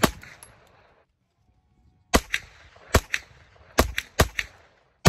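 Semi-automatic 9mm shots from a Palmetto State Armory AK-V pistol-caliber carbine, each a sharp crack with a short echoing tail. One shot rings out at the start, then after a brief silence a string of about six shots follows from about two seconds in, fired at an uneven pace.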